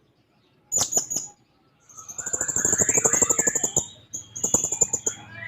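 Hanging parrot (serindit) calling. A few sharp, high notes come about a second in, then two bursts of shrill, very high, rapidly pulsed chattering calls with a short break between them.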